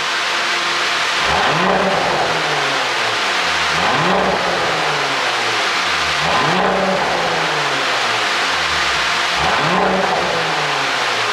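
Audi A7 55 TFSI's turbocharged V6 on an ECU pop-and-bang tune, idling and blipped four times in quick free revs, roughly every two and a half seconds. Each rev climbs sharply and drops back to idle.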